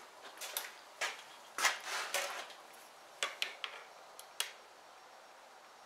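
Hands handling loose wiring and plastic connectors: a scatter of small clicks, taps and rattles over the first four and a half seconds or so.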